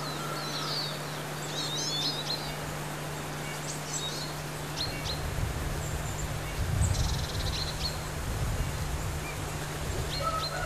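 Outdoor rural ambience: birds chirping and calling now and then over steady background noise with a low hum, and a short buzzy trill about seven seconds in.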